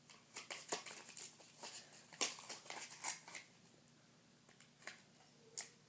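Scissors cutting and hands handling plastic packaging: irregular snips, clicks and crinkles, with a quieter pause a little past the middle.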